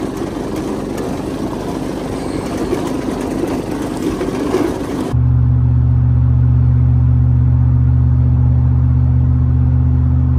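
The Cummins-diesel 1992 Dodge D350 truck drives over rough grass ground, its engine buried in a loud, noisy rush. About five seconds in, this cuts suddenly to the steady, even drone of a vehicle cruising at highway speed, heard from inside the cabin.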